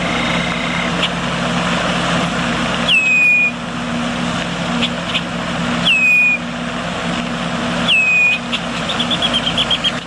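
Red-winged blackbird calling: three short, clear whistles that drop in pitch, about three, six and eight seconds in, then a quick run of chattering notes near the end. Under it runs a steady low hum and hiss.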